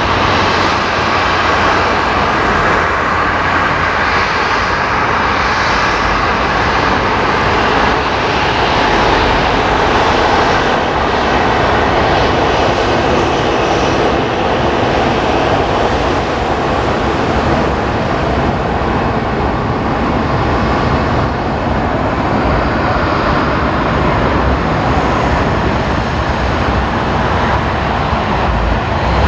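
Boeing 747-451 airliner's four jet engines at approach power on landing approach: a steady, loud jet engine noise that neither rises nor falls much.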